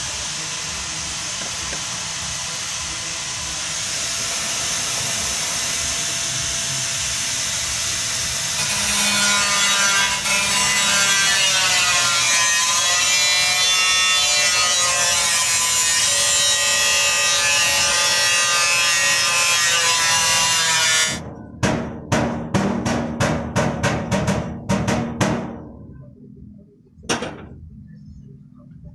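Gas torch flame hissing steadily, growing louder about nine seconds in with a wavering tone. The hiss cuts off sharply about two-thirds through, followed by a quick run of about ten short bursts and then one more.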